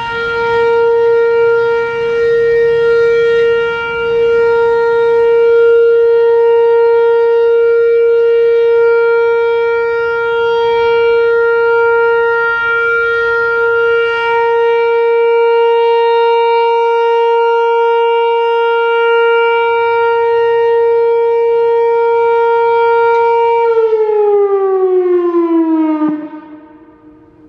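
Whelen WPS-4004 electronic outdoor warning siren sounding its one-minute steady alert tone, loud and held on a single pitch. About 24 seconds in the pitch glides down and the tone cuts off: the end of the alert signal in a scheduled siren test.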